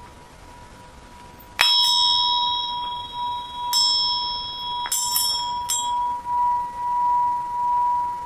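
Tibetan singing bowl sustaining a steady ringing tone, with a slow wavering swell in its loudness. Bells are struck five times over it, starting about a second and a half in; the first strike is the loudest.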